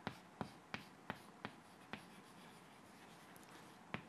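Chalk writing on a blackboard, faint: a quick run of sharp taps about three a second as letters are stroked on, then a lull and one last tap near the end.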